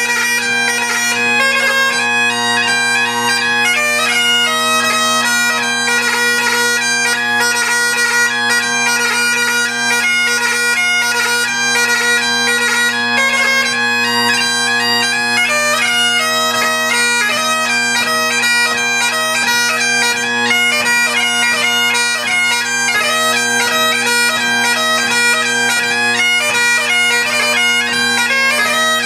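Great Highland bagpipe playing a hornpipe: the drones hold one steady tone under the chanter's melody, whose notes are broken up by quick grace notes.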